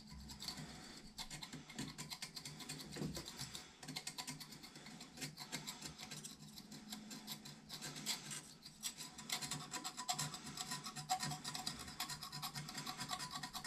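A knife blade scraping lightly over toilet porcelain in quick, repeated strokes, clearing off old residue.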